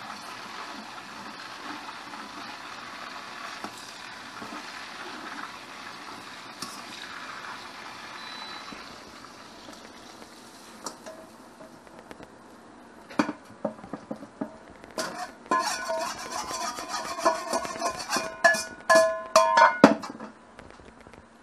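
Food frying in a pan with a steady sizzle, then, from about halfway through, a utensil striking and scraping the cookware in a quick run of ringing clinks that stops about a second before the end.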